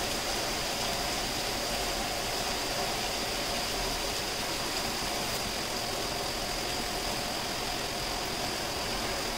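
Heavy cyclone rain pouring steadily, a constant even hiss, with a faint steady hum underneath.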